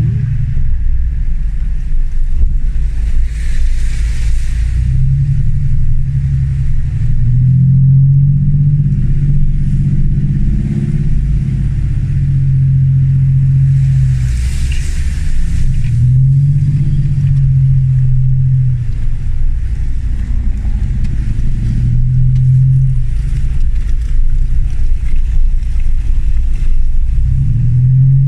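Land Rover Discovery 1's 300Tdi four-cylinder turbodiesel running under load off-road, its revs rising and falling every few seconds. Two brief rushing noises sound about 3 and 14 seconds in.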